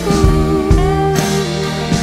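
Background music with a steady beat and held notes that slide in pitch.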